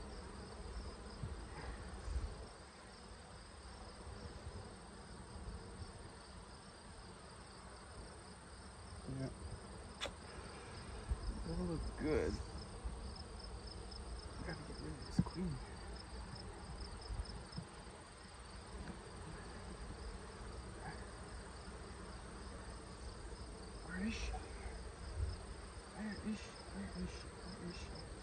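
Honeybees buzzing around an open hive, now and then one flying close past the microphone with a brief rising and falling drone. Underneath runs a steady, evenly pulsed chirping of crickets.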